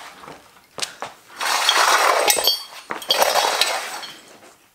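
Metal clinking and scraping as a trolley jack and a steel axle stand are worked under a car: a sharp clink about a second in, then two stretches of rattling, scraping noise with ringing metallic pings.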